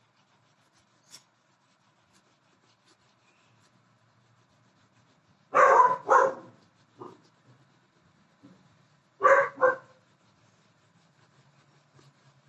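A dog barking: a quick double bark about five and a half seconds in and another about nine seconds in, with a couple of fainter single barks between.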